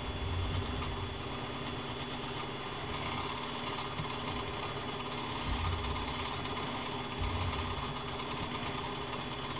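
Steady mechanical hum running without a break, with a few soft low thumps about half a second in and again around five and a half and seven seconds.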